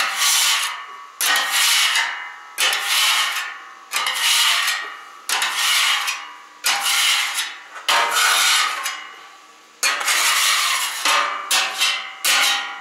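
Metal griddle scraper pushed in long strokes across the hot flat steel cooktop of a Camp Chef FTG600 griddle, rasping. The strokes come about every second and a half, quicker near the end.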